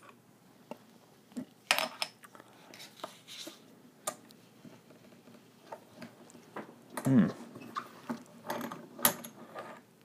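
Scattered small metallic clicks, taps and clinks of a metal euro cylinder lock and tools being handled in a small bench vise. The loudest knock comes about seven seconds in, with another sharp click near nine seconds.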